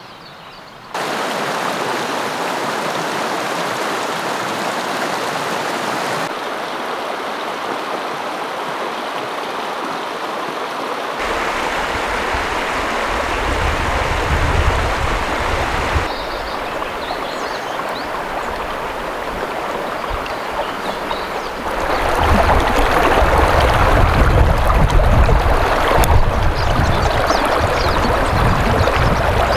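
A shallow mountain creek flowing over logs and stones, a steady rush of water. It starts about a second in and changes in strength and depth several times, and is fullest near the end.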